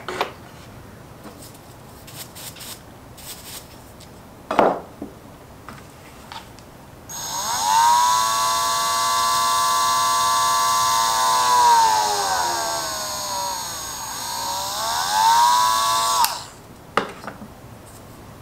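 Handheld electric rotary tool working a small piece held in the fingers. After a few light clicks it starts about seven seconds in and runs with a steady high whine. Its pitch sags for a couple of seconds, climbs back, and it switches off about two seconds before the end, followed by a few more light clicks.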